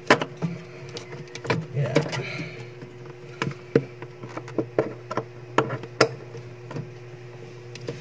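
Scattered clicks and light knocks as parts and wiring are handled and refitted at a no-frost refrigerator's evaporator coil, over a steady low hum.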